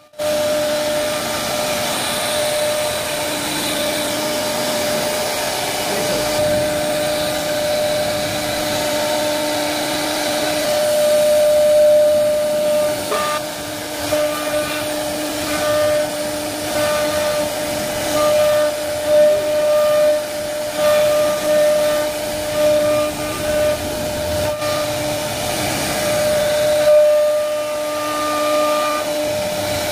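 CNC router spindle running with a steady high whine while its bit cuts grooves into laminated MDF board, with the hiss of the cut swelling and easing as the bit moves along the pattern.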